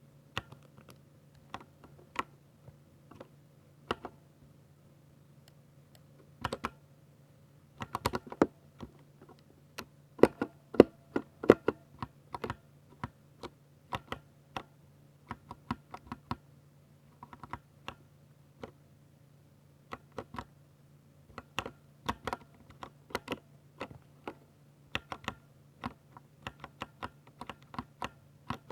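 Typing on a Ducky 60% mechanical keyboard with silver switches: irregular keystrokes, sparse at first, then a fast flurry about a third of the way in, with short pauses between bursts.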